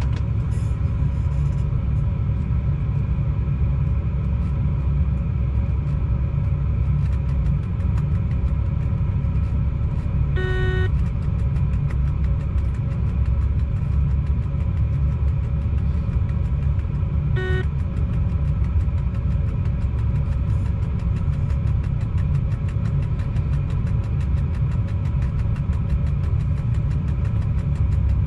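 Freight locomotive cab under way: a steady low rumble with a constant hum. A short electronic beep sounds twice, about ten and about seventeen seconds in.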